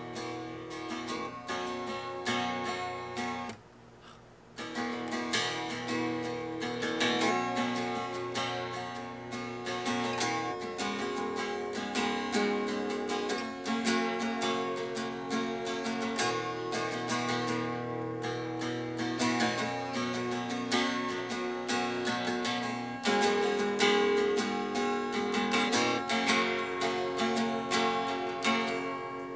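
Acoustic guitar played solo, with strummed chords and picked notes. It breaks off briefly about four seconds in, then carries on.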